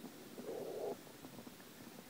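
Short gurgle of water from a canoe paddle stroke, lasting about half a second and starting just under half a second in.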